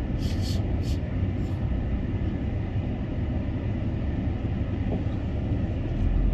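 Cabin noise of a car driving slowly: a steady low rumble of engine and tyres on the road, with a few short high hisses near the start.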